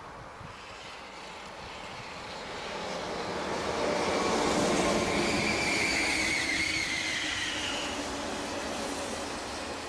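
TGV high-speed electric train passing at speed. A rushing noise of wheels and air builds to a peak about halfway through and then fades, with a high whine that falls slightly in pitch as the train goes by.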